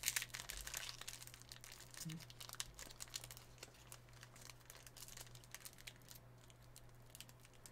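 Faint crinkling and rustling of foil trading-card pack wrappers and cards being handled: many small crackles, busiest in the first second or so and thinning out after. A steady low electrical hum sits underneath.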